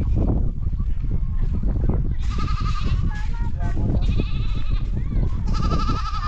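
Goats bleating: three high, quavering bleats about a second and a half apart, over a steady low rumble.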